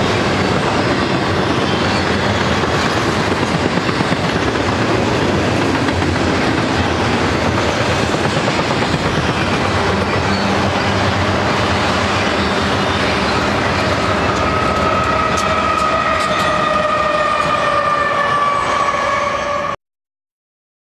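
Double-stack intermodal freight train rolling past: a steady rumble and clatter of wheels on rail. From about two-thirds of the way in, a high drawn-out tone joins in and slowly falls in pitch. All sound cuts off suddenly near the end.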